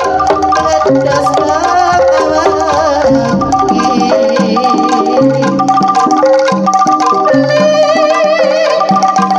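Loud live Javanese gamelan music accompanying a jaranan horse dance, played through a sound system: metallophones ring out a repeating pattern of struck notes, with drum strokes and a wavering melody line above.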